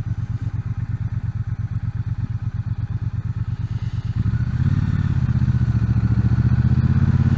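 Triumph T120 parallel-twin engine running under way with a steady pulsing exhaust note. About four seconds in, the throttle opens and it gets louder.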